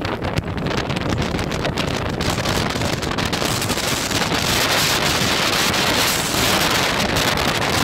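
Strong wind blowing across the microphone aboard a sailboat in heavy weather, over the rush of choppy water. The hiss grows louder and sharper about halfway through.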